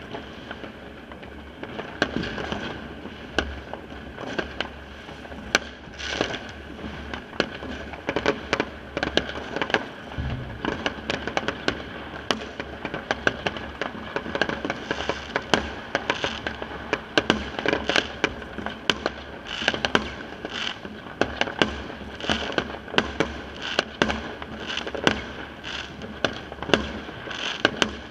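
Fireworks and firecrackers going off all around, a near-constant din of sharp bangs several times a second over continuous crackling.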